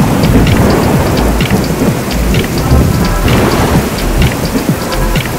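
Thunderstorm: heavy rain pouring down with thunder rumbling underneath.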